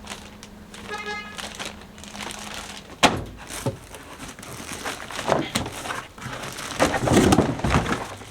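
Unboxing noise from an inverter charger's packaging being handled: irregular crinkling and rustling of the packing, with a sharp knock about three seconds in and the busiest handling near the end.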